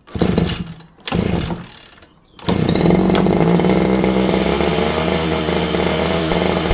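Small 30cc two-stroke brush cutter engine being restarted: it fires briefly twice and dies, then catches about two and a half seconds in and runs steadily.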